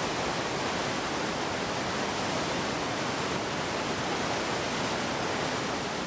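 Whitewater of a waterfall rushing steadily over rock.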